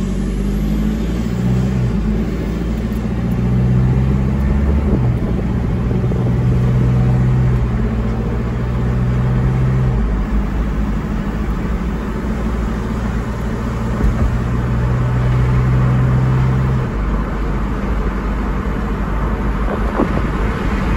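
Chevrolet Colorado's 2.8 L Duramax four-cylinder turbodiesel with a DT44 turbo and an aftermarket exhaust, heard from inside the cab, pulling away from a stop under light throttle. The engine note holds steady and then steps to a new pitch several times as the truck gathers speed, over road noise.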